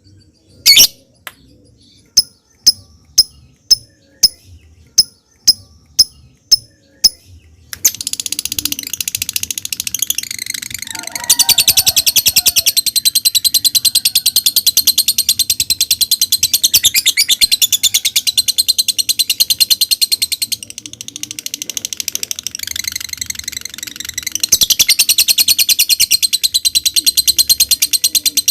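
Lovebird calling: sharp single chirps about twice a second, then about eight seconds in a long, rapid chattering trill (the 'ngekek'), which eases off for a few seconds past the middle and then comes back up.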